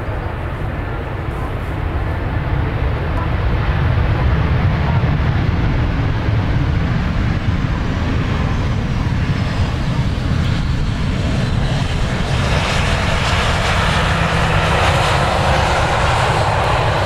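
Boeing 737-800's turbofan engines running as the airliner rolls slowly toward and past close by after landing. The steady jet rush grows louder over the first few seconds, and a brighter hiss builds about twelve seconds in as the aircraft comes nearest.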